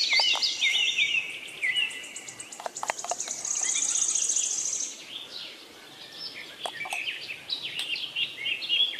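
Small birds chirping and twittering, with many short falling whistled notes and a rapid high trill in the middle. A few light clicks are heard among them.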